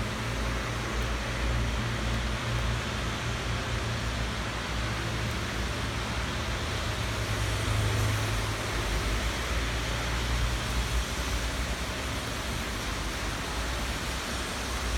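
Steady rain falling, an even hiss. Under it runs a low rumble that fades out about eleven seconds in.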